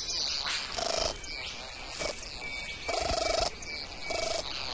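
Male satin bowerbird giving a series of short buzzing, churring calls, about four in all, the longest and loudest about three seconds in.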